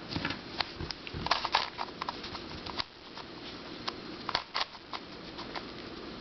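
Plastic twisty puzzles clicking and knocking as they are handled, with irregular light taps, a few in quick clusters.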